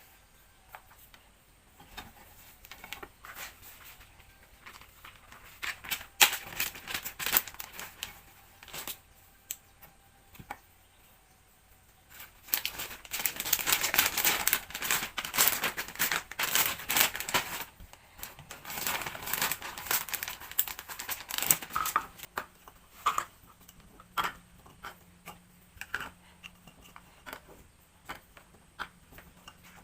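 Plastic packaging rustling and crinkling as it is handled, loudest in a long stretch about halfway through, with scattered clicks and taps throughout.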